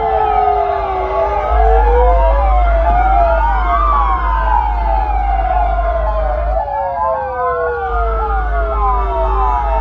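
Several electronic emergency-vehicle sirens sounding together: a slow wail that falls, rises and falls again, under fast repeating yelp sweeps, with a steady low hum beneath.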